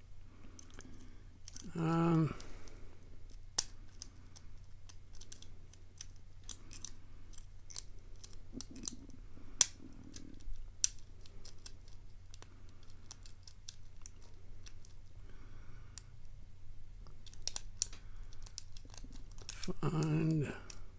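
Metal lock pick clicking and scraping on the pins and wards inside a pin-tumbler challenge lock's keyway, in irregular small ticks, as binding pins are sought.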